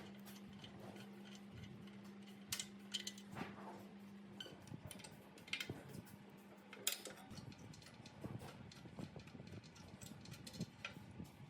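Scattered light clicks and metallic taps of small metal parts being handled, over a faint steady hum that stops about four and a half seconds in.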